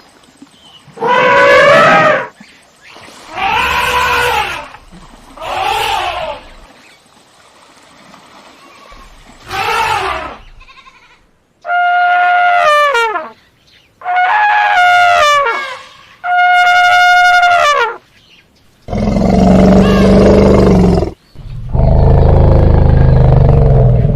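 A series of separate elephant trumpet calls: four that rise and fall in pitch, then three held on one steady pitch, followed near the end by two longer, deep, low-pitched calls.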